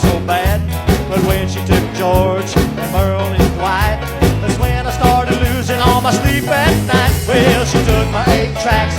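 A song with a steady beat and bass line, carrying a lead melody with vibrato.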